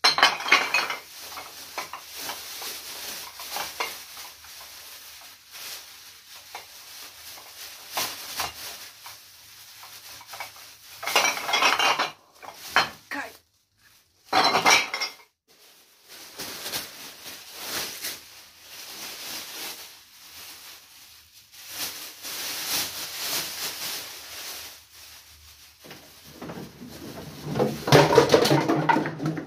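Empty glass bottles clinking and clattering in irregular bursts as they are handled and moved, with a few short pauses. Near the end, music comes in and is the loudest sound.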